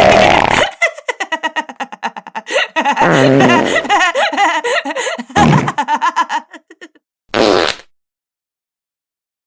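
A series of wet, diarrhea-style fart sound effects. A long blast comes first, then a rapid sputtering run of pops, then several more blasts, and finally one short separate burst near the end.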